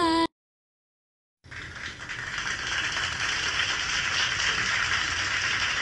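A sung melody cuts off abruptly, then about a second of dead silence, followed by a steady, fairly loud hiss of background noise with no tones or voices in it.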